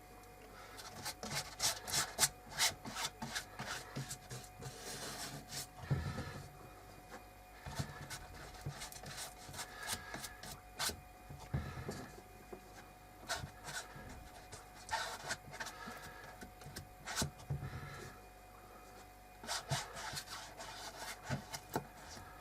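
A brush scrubbing and dabbing thick fibreglass resin into cloth over a wooden frame: irregular bursts of scratchy, rasping strokes, with short pauses between them.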